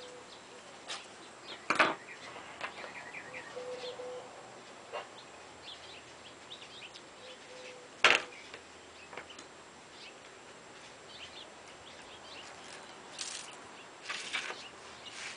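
Two sharp knocks, one about two seconds in and a louder one about eight seconds in, as the aluminium trailer brow is handled on a wooden table. Around them, birds chirp, with a few short low coos.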